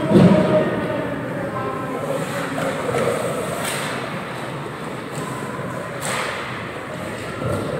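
Ice hockey play in an indoor rink: a loud thud at the start, then two sharp cracks of stick and puck about four and six seconds in, over faint shouts from players and spectators.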